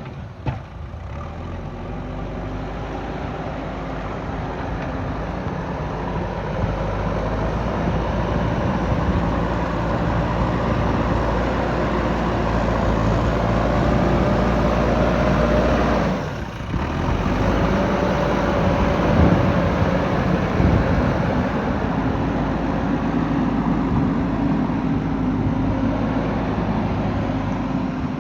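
Diesel engine of a JCB backhoe loader running under working load, its pitch rising and falling as the revs change. It drops away briefly a little past the middle and then picks up again.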